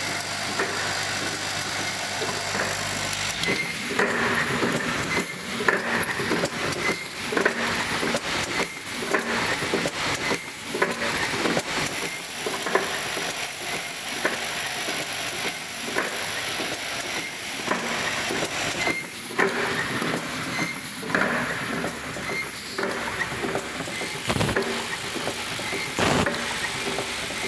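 Automatic cap assembly machine running. A vibratory bowl feeder hums and rattles its plastic caps for the first few seconds. Then comes a continuous clatter of pneumatic assembly stations, with irregular clicks and knocks as the cylinders and grippers move.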